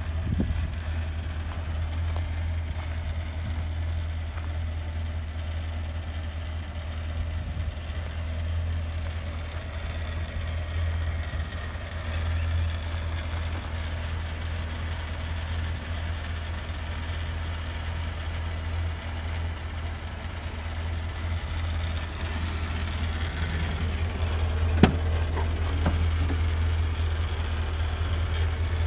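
A truck's engine idling steadily, a constant low hum. A single sharp click sounds near the end.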